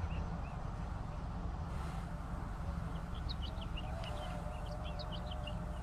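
Small birds chirping in short, quick notes, mostly in the second half, over a steady low rumble and hiss, with a faint steady hum near the end.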